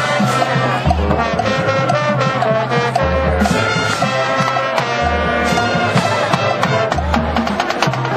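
Marching band playing on the field: brass sections sounding sustained chords over the drumline, with a low bass swell about every two seconds.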